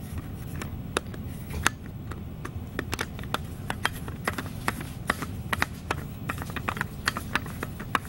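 Tops being screwed back onto salt and pepper grinders: irregular sharp clicks and taps, several a second, over a low steady hum.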